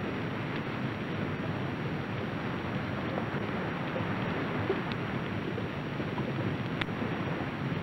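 A steady rushing wash of water-like noise, an ocean ambience bed under underwater footage, with a couple of faint ticks.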